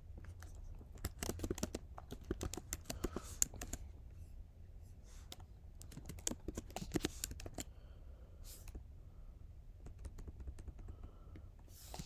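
Typing on a computer keyboard in two main bursts of rapid keystrokes with pauses between, over a faint low hum.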